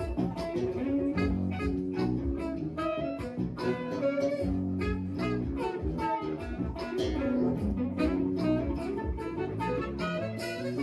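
Live band playing an instrumental passage: saxophone over electric guitar, bass and keyboards, with a steady beat.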